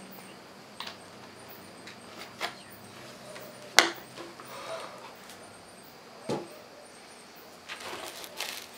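Scattered small knocks and clicks with some rustling, the loudest a sharp click a little under four seconds in, over a faint steady hiss: people shifting on a concrete floor and handling a plastic bottle.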